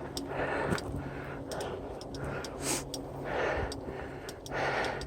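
A mountain-bike rider breathing hard while pedalling, about one breath a second, with light clicking and ticking from the bike.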